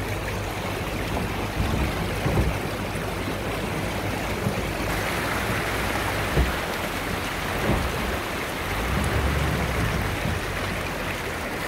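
Off-road SUV driving slowly through a shallow rocky stream: water rushing and splashing around the front tyre over the low, steady rumble of the engine, with a few thumps as the wheels go over rocks.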